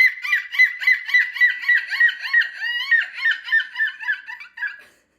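A person imitating seagull calls: a fast run of short, high, yelping notes, about four or five a second, that grows fainter and stops near the end.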